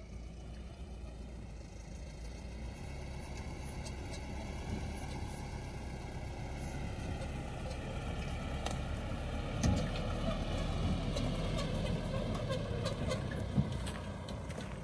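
Mahindra Bolero pickup's engine running as the truck drives down a steep grassy slope, growing gradually louder as it comes nearer. In the second half, sharp knocks and clatter from the truck bumping over the rough ground.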